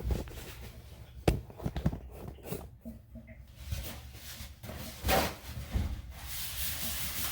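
A few sharp knocks and taps, then from about six seconds in a steady hiss of water running through the newly fitted tub waste and overflow during a leak test.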